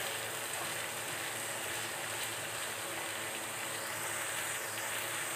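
Green beans, potato, onion and tomato sizzling steadily in hot oil in a steel pan.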